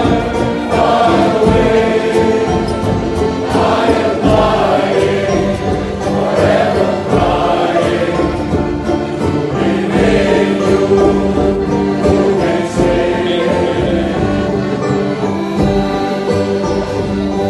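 Sea shanty choir of men's voices singing together, accompanied by accordions and a homemade box bass, with held chords and a steady sung melody.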